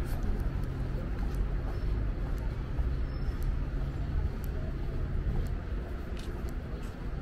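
City street traffic: a vehicle's engine hum and road rumble that ease off about five and a half seconds in, with faint scattered ticks over the top.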